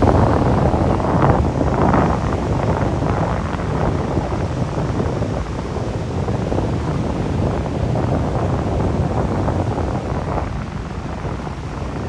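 Wind blowing across the microphone, loudest in the first couple of seconds, with sea surf washing in behind it.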